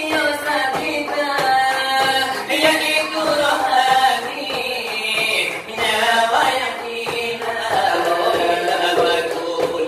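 Selawat dulang: voices singing a Minangkabau Islamic devotional chant in a wavering, ornamented melody, over a steady tapping beat on a brass tray (dulang).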